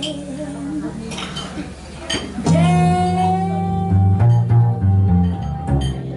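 Live acoustic song: a woman singing to her acoustic guitar, with an upright double bass playing plucked notes underneath. About two and a half seconds in she takes up a long held note.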